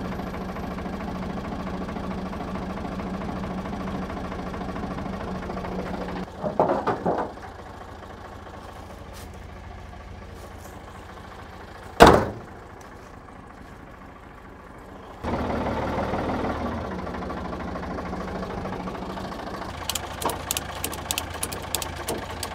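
Ford 555 backhoe loader's engine idling steadily. A single sharp knock comes about halfway through, and a rapid run of light metallic clicks near the end.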